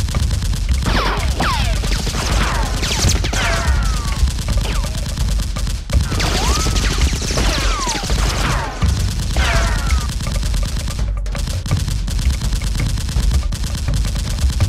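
Movie-style automatic gunfire sound effects dubbed over the Nerf fight: a rapid, continuous rattle of shots, with bullet ricochets whining and falling in pitch off the brickwork several times.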